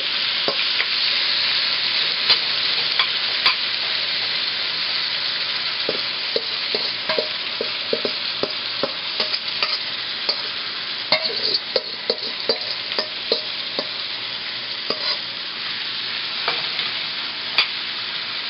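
Marinated beef chunks sizzling as they fry in a little hot oil in a frying pan, with scattered clicks and scrapes of a utensil against the pan and bowl as the meat is scraped in and stirred. The sizzle eases slightly toward the end.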